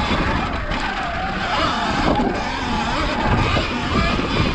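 Sur-Ron X electric dirt bike being ridden along a rough trail. The electric motor's whine rises and falls with the throttle over a low rumble underneath.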